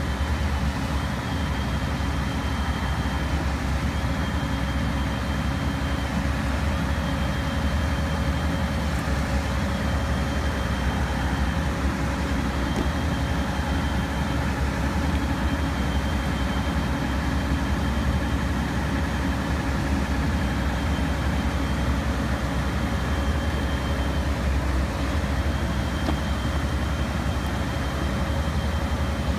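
Diesel engine of a track-maintenance machine running steadily, a heavy low hum, with a high tone that repeats every second or two.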